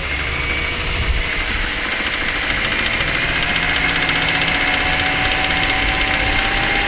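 Subaru flat-four engine running with a deep-seated knocking from the bottom end: rod knock, the sign of a worn lower-end connecting rod.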